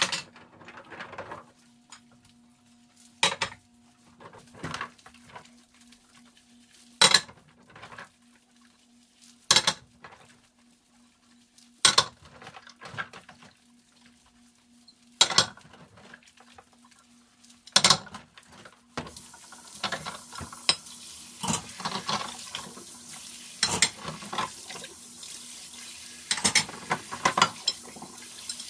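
Dishes and cutlery clattering as they are handled at a kitchen sink, a sharp clink every two to three seconds. About two-thirds of the way in the tap is turned on and water runs steadily while the clinking goes on, faster.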